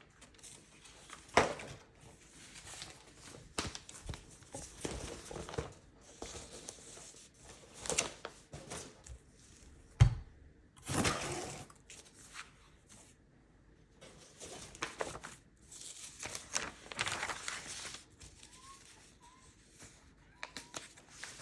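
Packing materials being handled: irregular crinkling, rustling and tearing of paper or plastic wrapping, with a sharp knock about a second and a half in and a louder one about ten seconds in as something is set down.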